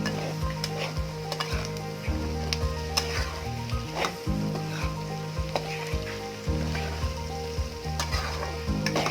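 Peas and mushrooms frying in masala in a kadhai with a steady sizzle, stirred with a spatula that clicks and scrapes against the pan every fraction of a second.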